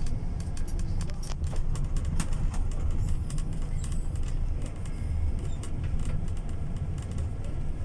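Steady low rumble of an air-conditioned passenger bus's engine and road noise heard from inside the moving cabin, with scattered light clicks and rattles.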